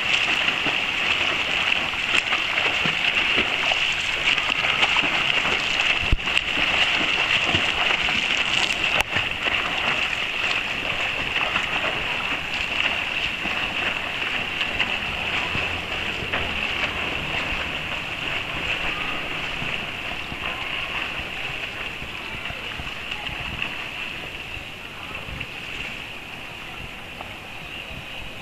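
Swimmers splashing through pool water with their arm strokes, a continuous churning and slapping of water. It is loudest over the first ten seconds and gradually fades toward the end.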